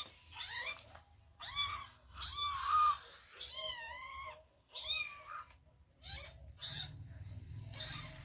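Recorded cat meows played through a mobile phone's speaker: a string of about eight meows, mostly short, with two longer, wavering calls near the middle.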